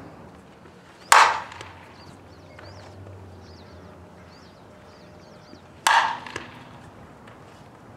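A softball bat hitting pitched balls twice, about five seconds apart: two sharp cracks, each trailing off in a short ring.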